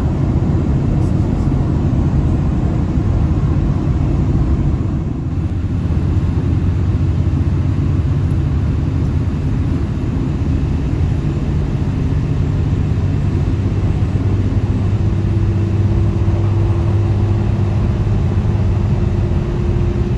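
Diesel limited express train running, heard from inside the passenger car: a steady rumble of wheels and engine with a low hum, joined by a higher steady hum about three-quarters of the way through as the train nears its stop.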